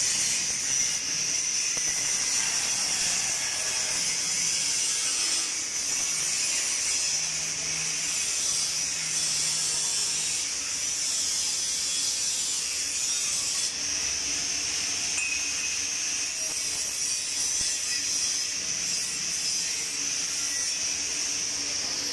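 Angle grinder cutting into a steel railing pipe: a steady high-pitched grinding that eases off briefly a few times.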